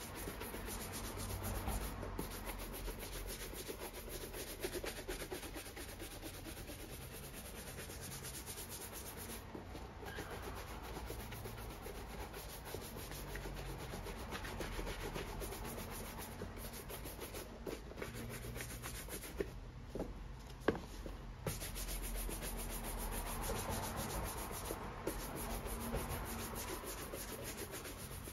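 A bristle brush scrubbed rapidly back and forth over a leather boot, making a steady rubbing, with a couple of small knocks about two-thirds of the way through.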